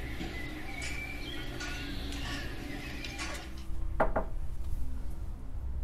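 Knuckles knocking on a door: two quick sharp knocks about four seconds in.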